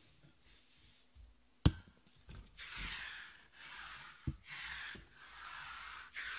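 A sharp knock about a second and a half in, then a sticky lint roller rolled back and forth over a cloth mat: four strokes of hissing, tacky rasp.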